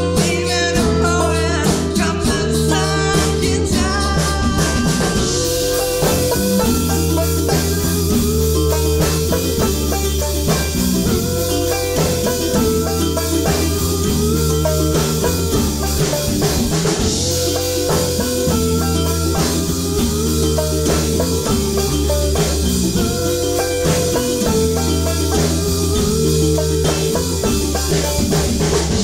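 Live band playing an instrumental passage without vocals: picked five-string banjo over acoustic bass guitar and drum kit, at a steady beat.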